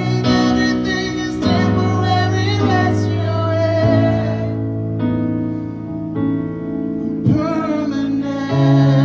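A man singing a slow ballad over keyboard piano chords. The voice carries the first three seconds or so, the piano chords ring on alone for a few seconds, and the singing comes back near the end.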